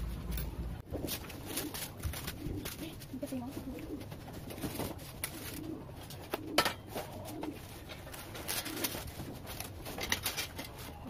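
Styrofoam packing pieces and cardboard being handled while a flat-pack metal table is unboxed: scattered clicks and rustles, with one sharp knock about six and a half seconds in. A bird coos low in the background, mostly in the first half.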